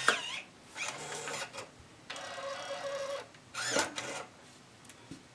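Brother P-touch PT-E550W handheld label printer printing a cable-wrap label: its feed motor whirs in several spurts of about a second each, with short pauses between, and a brief sharper sound just after the start.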